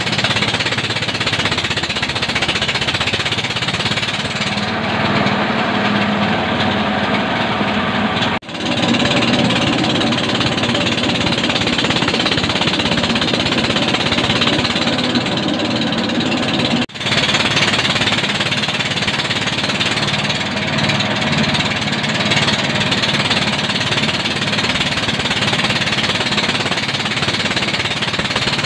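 Small rice mill driven by an old 7 hp Yanmar single-cylinder diesel engine, running steadily under load while milling palay. The engine's clatter and the mill's grinding blend into one loud, steady racket. Twice the sound drops out for a moment.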